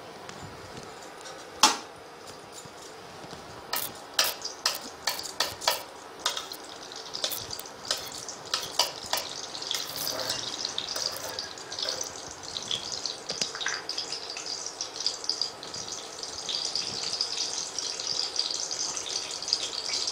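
Ghee heating in an aluminium kadai, with a metal spatula scraping and tapping against the pan a dozen or so times in the first half. A steady sizzle builds through the rest as the ghee gets hot.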